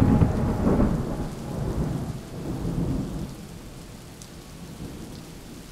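Thunder rumbling, loudest at the start and rolling away over a few seconds, over a steady hiss of rain.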